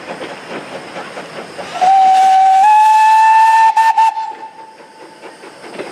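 Steam locomotive's whistle, blown once for about two and a half seconds. It steps up a little in pitch partway through and stutters briefly before it stops. Underneath is the running noise of the moving train, before and after the whistle.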